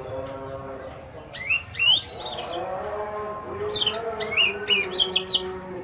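Oriental magpie-robin (kacer) singing harsh, rough song phrases: two bursts of sharp, sweeping whistled notes, one about a second and a half in and another from near four seconds, over a lower wavering hum.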